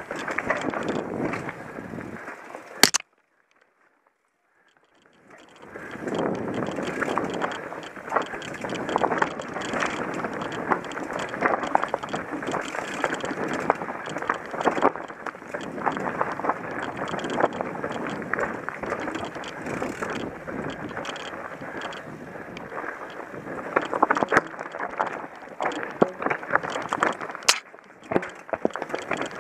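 Mountain bike rolling down rocky singletrack: tyres crunching over loose stones, with many quick knocks and rattles from the bike. About three seconds in the sound cuts off abruptly, then fades back in a couple of seconds later.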